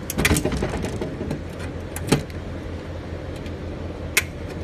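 Metal latch and cover of an outdoor LED display cabinet being worked by hand: a short rattle of clicks in the first second, then two single sharp clicks about two and four seconds in, over a steady low hum.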